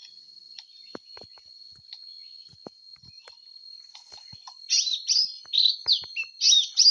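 A forest bird singing a quick run of loud chirps, each note falling in pitch, starting about two-thirds of the way in. Under it is a steady high insect drone, with a few faint ticks earlier on.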